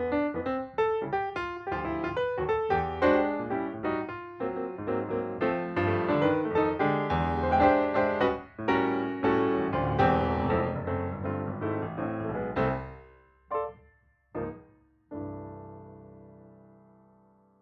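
Background piano music: a busy run of notes that fades out about two-thirds of the way through, two short single notes, then one held chord ringing away near the end.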